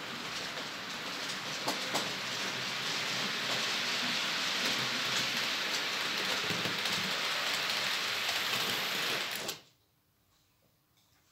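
TT-scale model freight train running along the track, a steady rushing rumble of wheels and motor with a couple of sharp clicks about two seconds in. The noise cuts off suddenly about nine and a half seconds in as the train stops.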